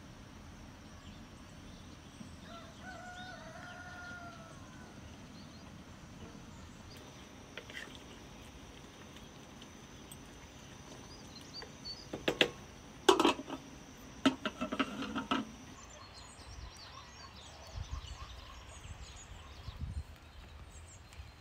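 Rural outdoor ambience with a faint bird or fowl call a few seconds in. About two-thirds of the way through comes a short run of sharp knocks and clatter, the loudest sound here.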